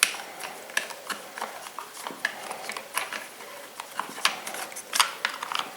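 Irregular light clicks and taps of small metal and plastic parts being handled as a carburettor linkage rod is unhooked from a chainsaw, the sharpest at the very start and about five seconds in.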